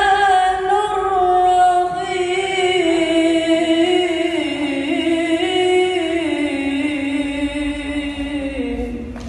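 A boy reciting the Qur'an in the melodic tilawah style: one long, unbroken, ornamented phrase, wavering in turns and stepping gradually lower in pitch, trailing off near the end.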